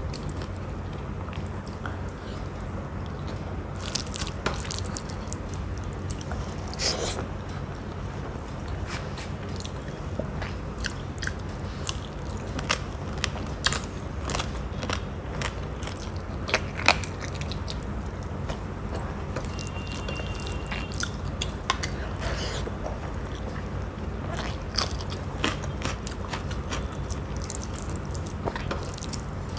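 A person eating rice, curry and fried fish close to the microphone: chewing, biting and small crunches as a string of short, irregular clicks, over a steady low hum.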